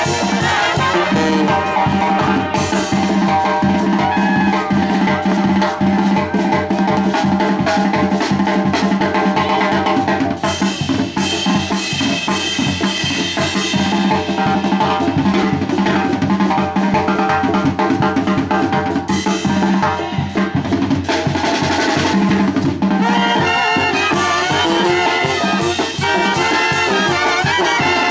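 Mexican brass band (banda de viento) playing a dance tune with trombones, trumpets, sousaphone, timbales, cymbal and bass drum. For most of the stretch the drums and sousaphone lead with fewer horn lines, and the full brass comes back near the end.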